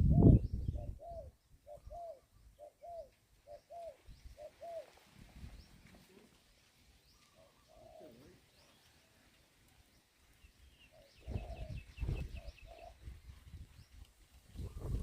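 Dove cooing: a string of short, repeated coo notes through the first few seconds, then fainter. Higher-pitched chirping from small birds comes near the start and again with low rumbling noise about eleven to thirteen seconds in.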